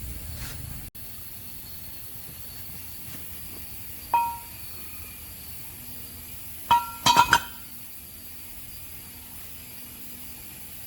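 Metal parts or tools clinking: one sharp clink with a short ring about four seconds in, then a quick run of clinks about seven seconds in.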